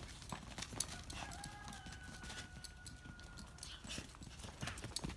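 An American Staffordshire terrier running and scrabbling over a dry dirt yard: quick, irregular paw footfalls and scuffs.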